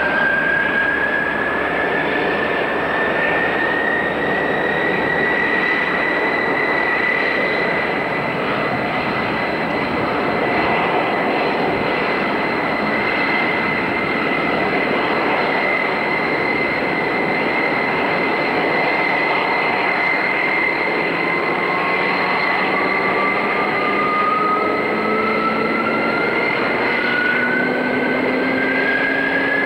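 Vickers Viscount's Rolls-Royce Dart turboprops running on the ground, a loud steady rush with a high turbine whine that rises in pitch over the first several seconds and then holds. A second whine climbs in pitch from about two-thirds of the way through, and lower tones rise near the end.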